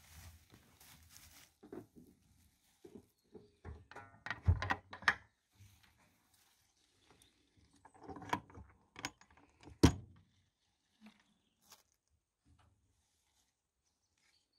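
Wooden-framed wire-mesh lid of a rabbit hutch run being lifted and handled: a string of knocks, clatters and rattles of timber and wire. The loudest knocks come about four and a half seconds in and a very sharp one about ten seconds in.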